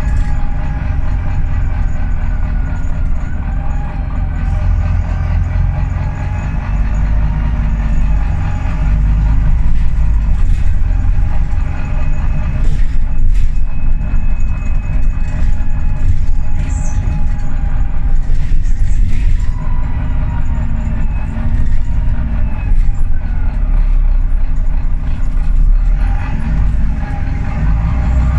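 Volvo B9TL double-decker bus under way, heard from the upper deck: a steady low engine rumble and a drivetrain whine that rises and falls as the bus speeds up and slows, with a few brief knocks and rattles.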